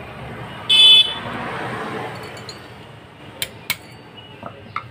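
A short blast of a vehicle horn about a second in, with vehicle noise fading out after it. Then two sharp metal taps a third of a second apart: a hammer striking a steel punch to knock a part off the camshaft of an R175 diesel engine.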